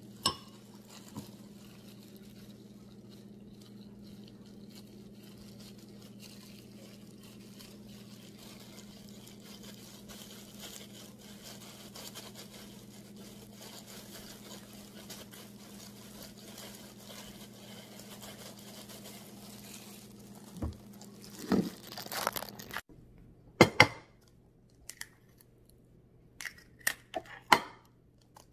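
Plastic food-prep gloves crinkle as hands squeeze and press cooked rice, over a steady low hum. Near the end come a few sharp knocks and cracks as an egg is cracked over a bowl.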